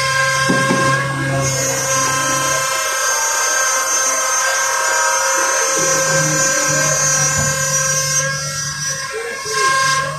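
Boom truck's crane running as it lowers a tree into its pit: a steady, high, multi-toned hydraulic whine over the low hum of the truck's engine, which drops away for a few seconds in the middle.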